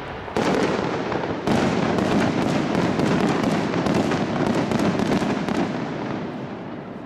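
Fireworks display: one shell bursts about a third of a second in and another about a second and a half in, followed by dense crackling from the bursting stars that slowly fades toward the end.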